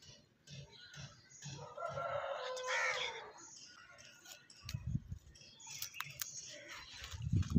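A rooster crowing once, a single call of about a second and a half starting about one and a half seconds in. Faint clicks and low rumbles follow near the end.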